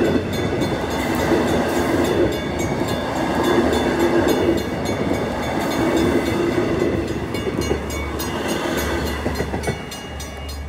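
Long Island Rail Road bilevel passenger coaches rolling past over a grade crossing, their wheels clattering in a steady clickety-clack. The sound drops away sharply near the end.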